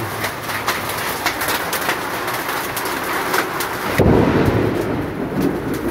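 Hailstorm: hailstones pelting down in a dense patter of sharp clicks. About four seconds in, a louder low rumble joins them.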